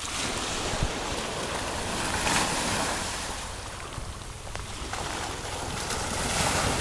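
Small waves washing up a sandy beach and breaking against a log at the water's edge, the wash swelling twice, with wind rumbling on the microphone.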